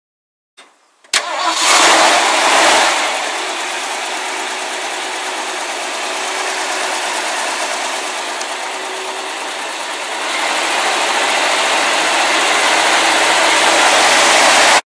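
1971 Ford F100's rebuilt 302 V8 starting: it catches after a brief crank about a second in and flares up, then settles into a steady idle. It runs somewhat louder for the last few seconds before the sound cuts off abruptly.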